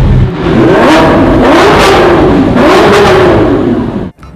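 Lamborghini Aventador V12 revving hard as it pulls away in a tunnel, its pitch rising and falling about three times.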